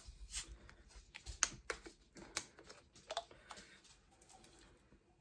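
Plastic Coca-Cola bottle and its screw cap being handled just after opening: a scatter of irregular light clicks and crackles that thin out and fade near the end.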